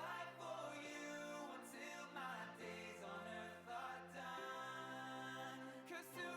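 A song playing: a singing voice over held low notes that change every second or two.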